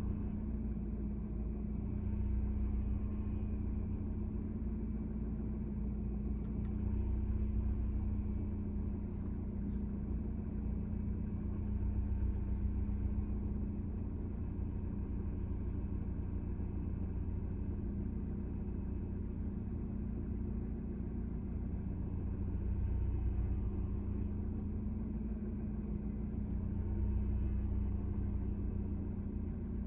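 Car engine idling while the car stands still, heard from inside the cabin: a steady low rumble with a constant hum that swells and eases gently every few seconds.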